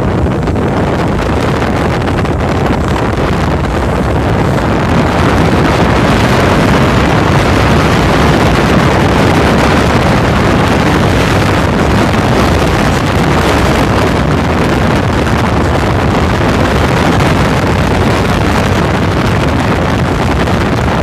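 Steady rush of wind buffeting the microphone over the continuous drone of a cruise boat's engine as it moves through the water.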